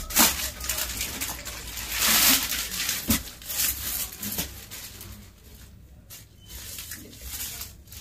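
Rustling and crinkling of folded suit fabric and its clear plastic packaging being handled and shifted, loudest in the first couple of seconds, with a single knock about three seconds in.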